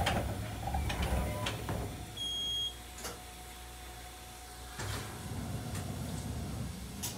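Interior of a stationary electric railcar just after the passenger sliding door shuts: a steady low hum from the car's equipment, broken by a few clicks and knocks and a short, high beep about two seconds in.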